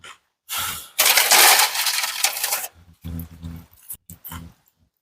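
Rustling and crinkling of food packaging for about two seconds, followed by a short hum from a voice and a few soft clicks.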